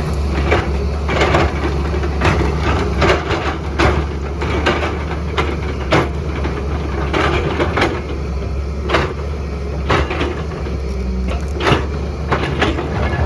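JCB excavator's diesel engine running steadily, with frequent irregular knocks and cracks of rock and earth as the bucket digs and scrapes.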